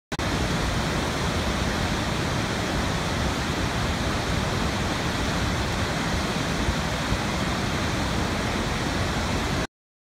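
A large waterfall's steady rush of falling water, cutting off suddenly near the end.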